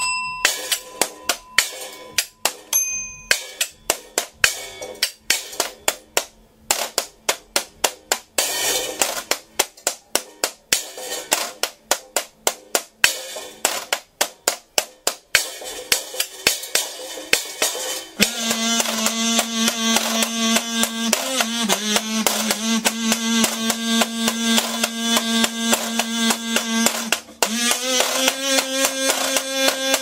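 Washboard played as percussion in quick, sharp scraped and tapped strokes. About eighteen seconds in a kazoo comes in, humming long held notes over the washboard rhythm, with a brief break and a slightly higher note near the end.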